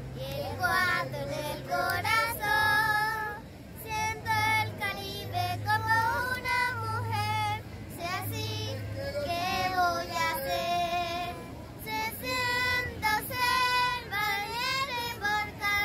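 Two young girls singing a song together, their high voices rising and falling through sung phrases.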